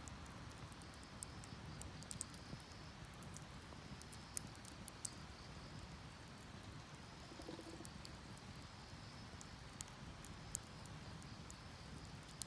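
Faint wood fire crackling with scattered sharp pops, burning in a metal bucket, over a steady rush of river water. Insects trill high and thin, on and off.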